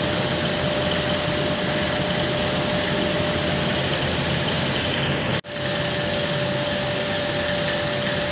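A fish curry cooks in a blackened wok over a lit stove: a steady rushing hiss with a faint constant whine. The sound drops out for an instant a little past halfway.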